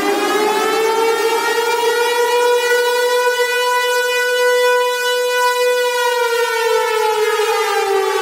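Civil defence siren wailing: its pitch finishes climbing to a high note, holds there for several seconds, then slowly falls away in the last two seconds.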